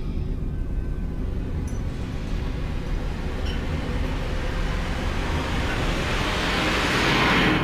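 Steady low rumble, with a rushing noise that swells over the last few seconds and cuts off suddenly at the end.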